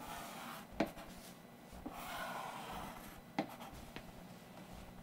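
Red pencil drawing on a paper map: faint scratching strokes, strongest around the middle, with two short sharp ticks, one about a second in and one past three seconds.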